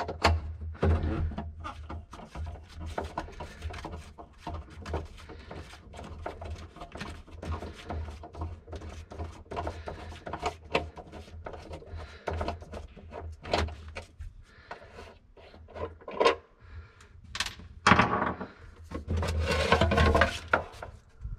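Hand screwdriver backing screws out of the cover of a Bennett trim tab hydraulic pump, with irregular clicks and scraping over a steady low hum. Near the end the cover is worked loose and lifted off, with louder rubbing and knocks.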